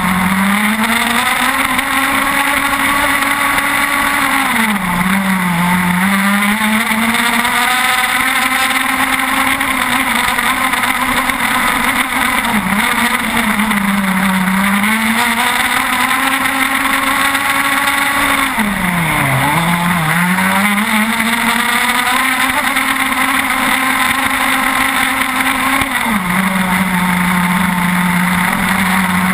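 The 30cc two-stroke petrol engine of an RC racing catamaran with a tuned pipe, heard on board right beside the engine, running hard at high revs. Its pitch dips and climbs back three times, about 5, 14 and 19 seconds in. Near the end it settles to a lower, steady pitch.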